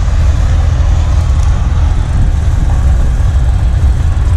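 Wind buffeting the microphone of a camera on a moving bike: a loud, steady, low rumble.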